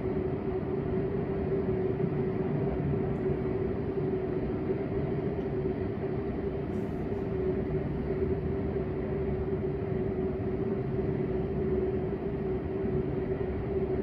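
Steady mechanical hum with one constant mid-pitched tone over a low rumble, unchanging throughout.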